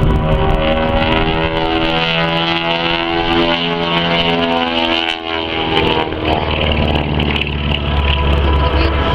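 Beechcraft Model 18's twin radial engines running during an aerobatic display, their pitch sliding downward about five seconds in as the plane passes, then a deep steady drone.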